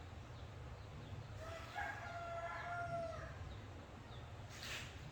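A rooster crowing once, a single drawn-out call of under two seconds, over a low steady hum. A brief hiss follows near the end.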